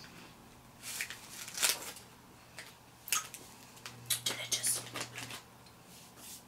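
Plastic snack wrapper from an Umaibo corn-puff stick crinkling as it is handled, in several short bursts.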